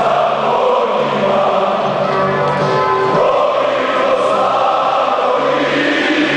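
A packed arena crowd of Partizan Belgrade basketball supporters singing a chant together, thousands of voices holding a sustained melody.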